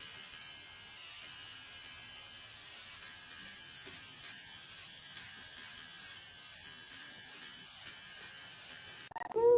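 A steady, high hissing hum like a small electric motor, with a short cat meow near the end.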